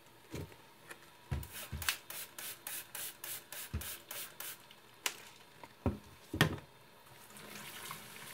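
Wet car sponge squeezed and worked in rubber-gloved hands under a running tap: a quick even run of squelches, about three a second, then a few louder squishes and water splats, and a soft fizz of suds near the end.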